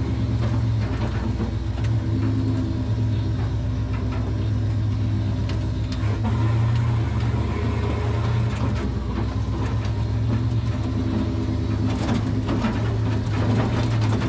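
Turbocharged 5.9-litre Magnum V8 of a 1951 Dodge one-ton truck running at a low, fairly steady speed as the truck drives over rough ground. Scattered knocks and rattles come through it, more of them near the end.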